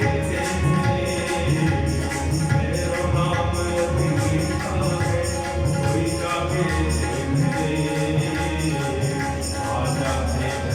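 Devotional bhajan music: jingling hand percussion keeps a steady beat over a low drum and sustained melodic tones.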